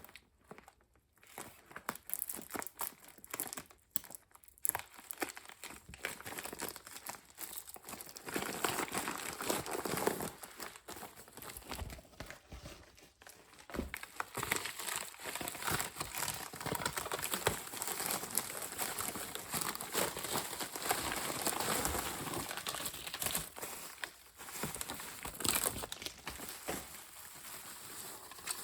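Packaging being crinkled and rustled by hand during unpacking. It comes in scattered bits at first, then runs steadier and louder from about eight seconds in, with a few sharp clicks.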